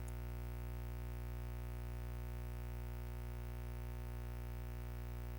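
Steady electrical hum with many overtones, unchanging in pitch and level.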